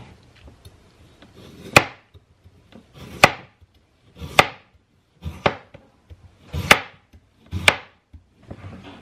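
Knife striking a cutting board, cutting potatoes: about six separate chops, spaced roughly a second apart.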